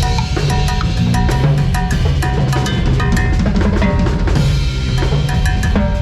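Band playing during a sound check: a drum kit leads a busy groove of kick, snare and cymbal hits, over sustained bass and other pitched instrument notes.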